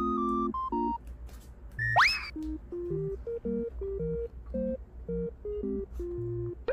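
Background music: a simple bouncy tune of short electronic beeping notes, with a quick rising whistle-like sound effect about two seconds in.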